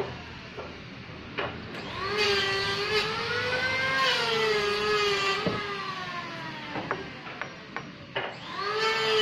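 Horizontal band sawmill running through a log: a whine with many overtones that rises about two seconds in, then slowly sinks as the blade takes the cut, dips again near the end and picks back up. A few sharp knocks are scattered through it.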